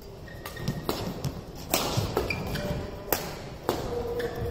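Badminton rally: rackets smacking the shuttlecock in a fast exchange, a string of sharp cracks at uneven intervals, with brief squeaks of players' shoes on the court mat between hits.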